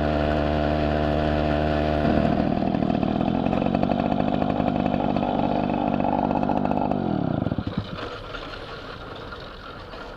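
Riga moped's single-cylinder two-stroke engine idling steadily, then running at higher revs for a few seconds, then its pitch falls and the engine stops about seven and a half seconds in.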